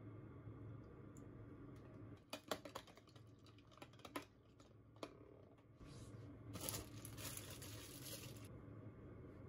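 Wire whisk clicking against a plastic container as an egg and soy-milk mixture is beaten, in quick separate taps. About two-thirds of the way in comes a couple of seconds of plastic-bag crinkling.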